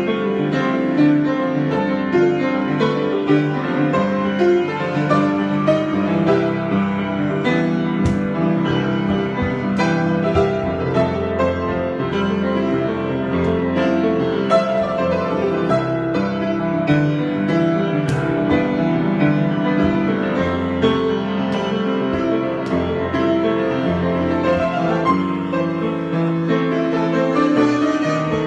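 Solo piano improvisation: a continuous flow of notes and chords without a break.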